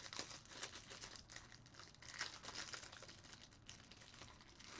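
Faint, irregular crinkling of a plastic trading-card pack wrapper being worked at by fingers to get it open, the wrapper not tearing easily.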